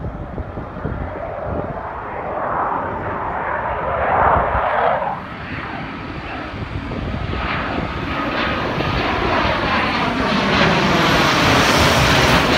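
Jet noise from a Eurofighter Typhoon's twin turbofans as the fighter flies low overhead. It swells about four seconds in, then builds to its loudest near the end with a falling pitch as it passes, and cuts off suddenly.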